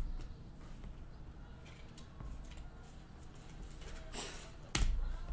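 Trading cards being handled on a table: faint sliding and rustling of cards, a brief hissing slide about four seconds in, and a sharp tap just after it.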